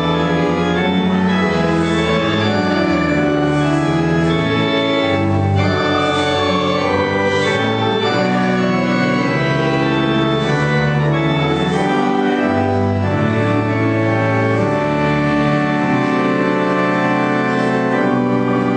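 Organ playing slow, sustained chords over a bass line that steps from note to note, the chords changing every second or two.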